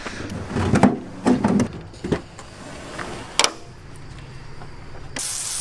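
Knocks and rattles of a campervan's exterior storage compartment being handled, with a single sharp knock about three and a half seconds in. Near the end a garden hose starts spraying water with a steady hiss.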